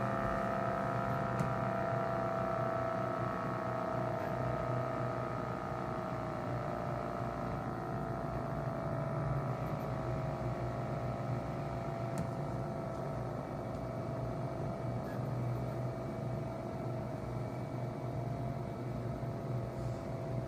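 Miniature replica ACA P-50 siren sounding a chord of several steady tones that slowly fall in pitch as its rotor winds down, with a low motor hum beneath.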